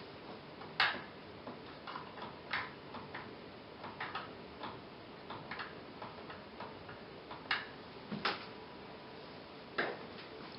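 Irregular clicks of the front-panel push buttons on a 14-inch Samsung CRT TV being pressed to step through channels, five of them sharper than the rest, over a faint steady hiss.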